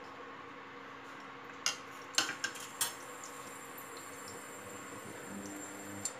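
Stainless steel plate and utensils clinking, a quick cluster of four or five sharp metallic clinks about two seconds in, over a steady electrical hum from the running induction cooktop.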